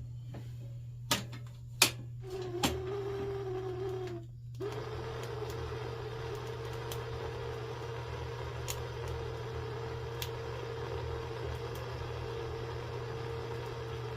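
A few sharp clicks, then a small electric motor starts with a steady whine, cuts out briefly about four seconds in, and starts again, running steadily.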